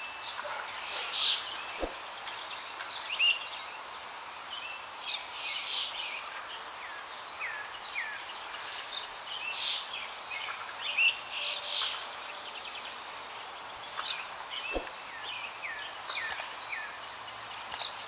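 Many small birds chirping and calling: quick high notes and short falling whistles, scattered throughout, over a steady outdoor hiss.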